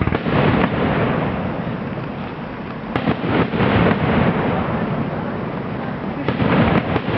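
Aerial fireworks bursting and crackling without pause, with sharper bangs near the start, about three seconds in, and again near the end.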